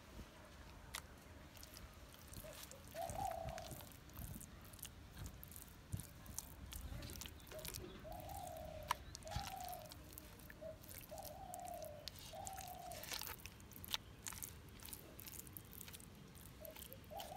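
Hands squishing and smearing thick spice paste onto raw trigger fish pieces in a clay pot: soft wet clicks and squelches throughout. A bird calls in the background with short low notes, several times.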